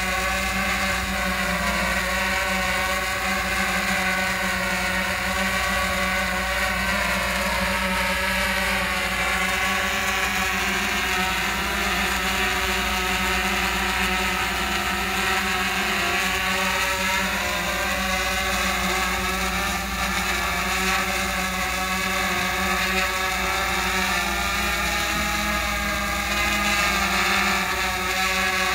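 Multirotor drone's propellers and motors buzzing steadily as it hovers, a layered whine whose pitch wavers slightly as the motors adjust.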